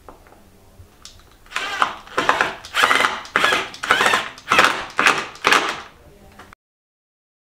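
Cordless drill driver driving a wood screw through a brass bracket into a wooden skirting board, the motor run in a string of short pulses, about two a second, then cutting off suddenly.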